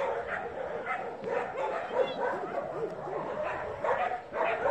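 A young puppy yapping: quick, high-pitched yips and short barks, many in a row.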